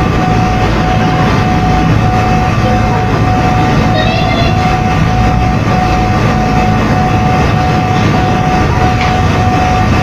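A machine running steadily: a constant hum with a thin, even whine over it.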